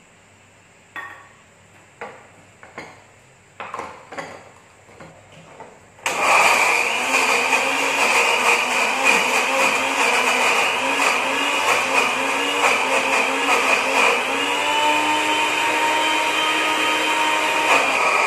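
A few knocks and clinks as the glass blender jar is handled, then about six seconds in an electric blender starts and runs loud and steady, grinding a Batak arsik spice paste of turmeric, shallots, garlic and other spices with cooking oil. Its pitch shifts slightly about fourteen seconds in.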